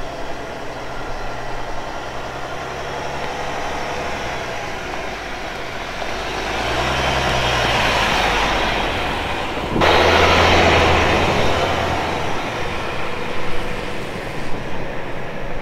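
Jeep Grand Cherokee four-wheel drive driving slowly on a dirt track, its engine and tyres growing louder as it nears. A sudden jump about ten seconds in is followed by the same vehicle driving away, fading.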